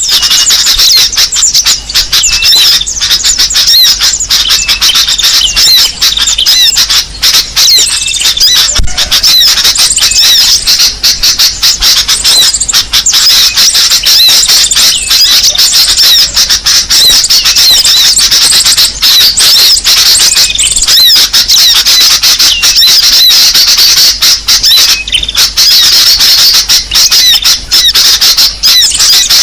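Bird-lure recording of small songbirds: a loud, unbroken stream of rapid high-pitched chirps and twittering calls, played to draw small wild birds in.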